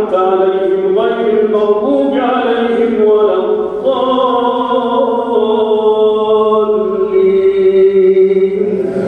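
A man's voice chanting Quran recitation in a slow, melodic style, drawing vowels out into long held notes, with one long note in the second half that sinks slowly in pitch.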